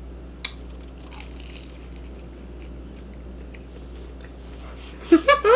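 A person chewing food close to the microphone, quietly, with a sharp click about half a second in. There is a brief vocal sound near the end.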